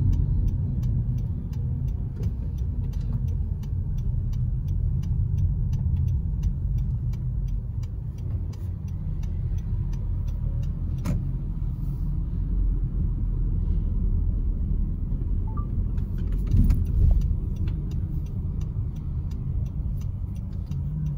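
Steady low rumble of engine and road noise inside a moving car's cabin, with a light, regular ticking through roughly the first half.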